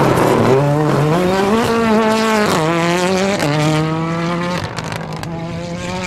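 Ford Fiesta R5 rally car's turbocharged four-cylinder engine accelerating hard past. Its pitch climbs through the revs, drops at two quick upshifts near the middle, then fades as the car pulls away.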